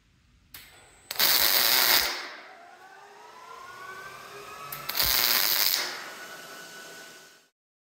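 MIG welder arc crackling in two short bursts of about a second each, fusing small steel parts; a quieter hiss trails after each burst.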